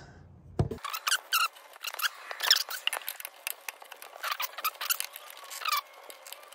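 Irregular small clicks, rubbing and short squeaks of a wrench and plastic wiring-harness parts being worked in the tight gap under a motorcycle's rear fender.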